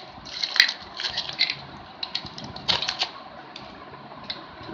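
Wooden spoons and spatulas clacking against one another as a bundle of them is handled, an irregular run of light taps and clicks.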